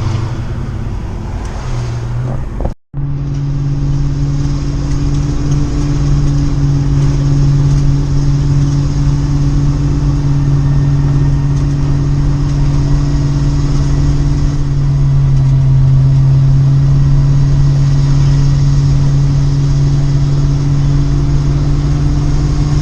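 Vehicle driving at a steady speed, heard from inside the cab: a steady engine drone over road noise, briefly cutting out about three seconds in.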